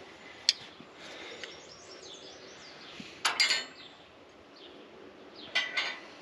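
Steel hand tools (wrenches and pliers) clinking against each other and against metal as they are handled and set down: a sharp click about half a second in, then a short run of ringing clinks in the middle and another near the end. Birds chirp faintly in the background.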